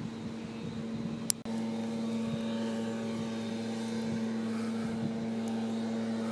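A steady mechanical hum of an engine or motor at one even pitch. It becomes louder and fuller about a second and a half in, just after a short sharp click.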